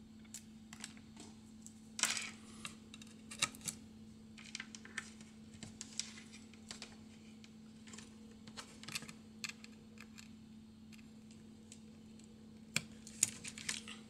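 Irregular small clicks and light plastic rattles of a USB cable being handled and its plugs pushed into the ports of a USB cable tester, over a steady low hum.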